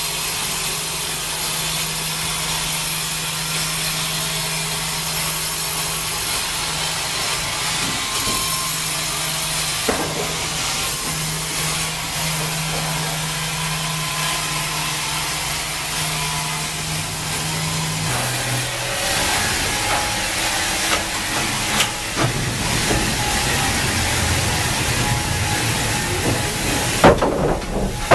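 Wravor log band saw running and cutting lengthwise through a log: a steady hiss over a constant hum. A little past halfway the hum drops and the sound turns lower and rougher, with a few sharp knocks near the end.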